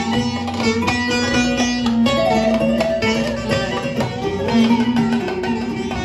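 Bağlama (long-necked Turkish saz) played fast with rapid plucked notes in an instrumental break of a Turkish folk song, over a steady low note, with electronic keyboard accompaniment.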